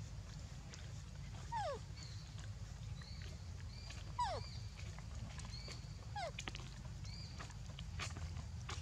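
Three short animal calls, each falling quickly in pitch, spaced about two seconds apart, with brief high chirps in between over a steady low rumble.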